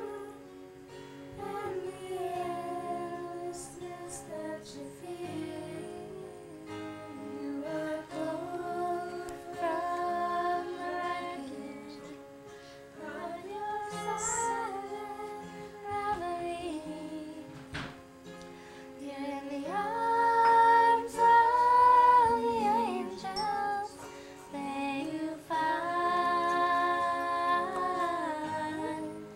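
Female voices singing a song together, with held notes, to a strummed acoustic guitar.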